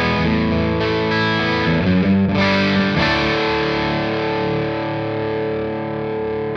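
Electric guitar with Travis Bean–style Mad Love humbucker pickups, played through the Silver Llama vintage amp sim plugin with its slap-back delay on and fuzz and echo off. Chords are strummed, with new strums about two and three seconds in, and the last is left to ring.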